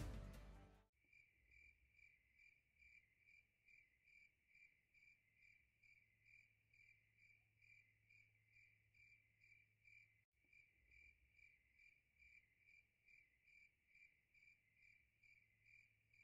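Faint, even insect chirping, about two to three chirps a second, after music fades out about a second in.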